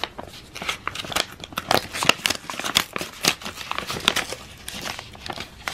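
A tightly sealed paper envelope being pulled and torn open by hand: irregular crinkling and tearing of paper.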